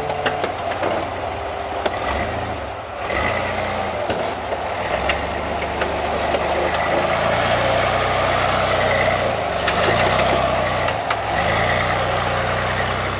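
Rock-crawler buggy's engine running under load as it crawls up a steep sandstone ledge, working harder from about three seconds in, with a few sharp clicks early on.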